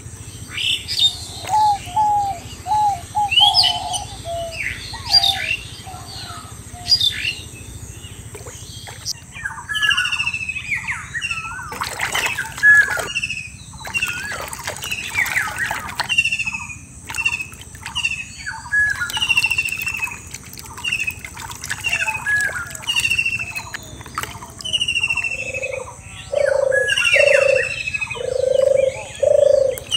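Several birds calling: short chirps and repeated falling whistled notes throughout, with a lower repeated call over the last few seconds. There is a brief rush of noise near the middle.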